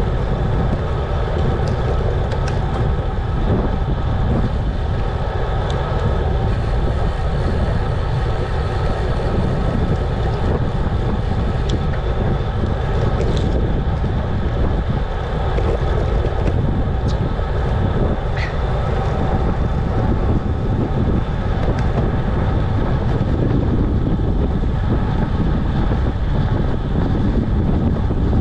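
Wind rushing over the camera's microphone as a road bike rides along at speed, a steady loud rumble, with now and then a faint tick.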